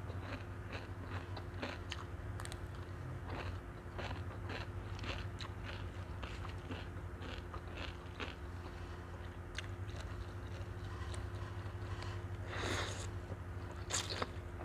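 Close-miked eating of a Thai noodle salad with crisp raw vegetables: a steady run of small crunches and wet mouth clicks, a few each second. Near the end come louder slurps as noodles are sucked in.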